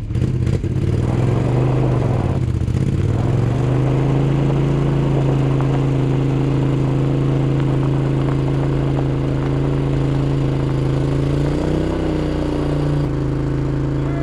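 An engine running steadily under a light load, its pitch rising briefly and settling back near the end.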